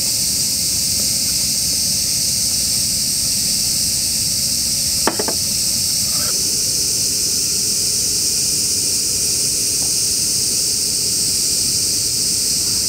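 Freshly poured Hoppy fizzing in a glass beer mug, a steady high hiss. About five seconds in, the glass gives one short ringing clink.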